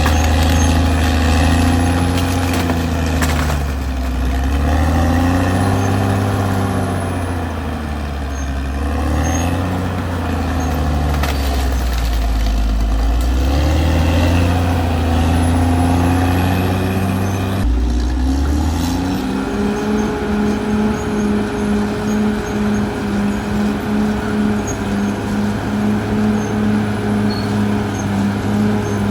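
Caterpillar D6R XL bulldozer's diesel engine working, its pitch rising and falling as the load changes. About two-thirds of the way in, the sound changes abruptly to a steadier engine note with a regular pulsing.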